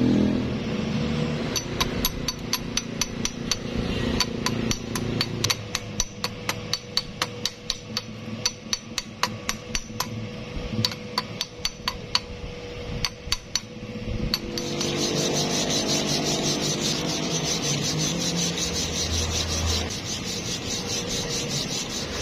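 Metal being struck over and over with a small hammer, about three to four sharp taps a second, typical of a chipping hammer knocking slag off a weld. About fourteen seconds in the tapping stops and a steady crackling hiss takes over.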